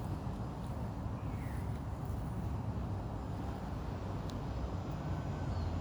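Steady low rumble of outdoor background noise, with a few faint ticks and a faint brief chirp.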